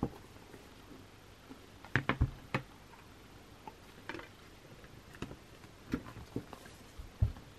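Scattered taps and knocks, about eight in all, from a CD album and its packaging being handled; the strongest come about two seconds in and near the end.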